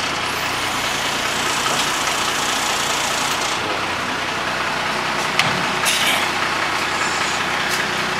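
Crane truck's engine running steadily to power the hydraulic boom as it lowers a load, with a few short sharp knocks a little past halfway and again near the end.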